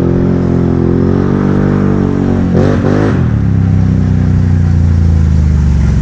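Can-Am Renegade ATV's V-twin engine running as the machine rides up at low speed, its pitch rising and falling a little with light throttle, with a brief rev about two and a half seconds in.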